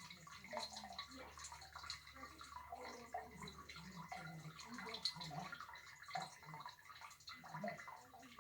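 Irregular gurgling, bubbling and dripping from water in household plumbing pipes, in uneven short bursts.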